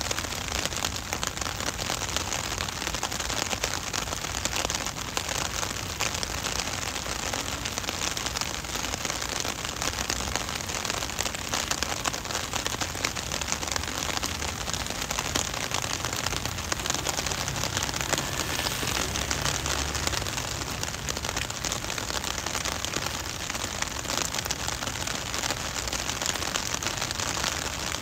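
Heavy rain falling steadily on pavement and puddles, a dense, even patter of drops. A low rumble rises under it about two-thirds of the way through and fades again.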